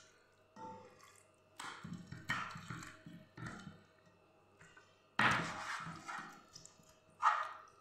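Hands rubbing and turning raw chicken pieces in a pan of vinegar-and-spice marinade: irregular wet squelches and splashes, the loudest about five seconds in and another just after seven.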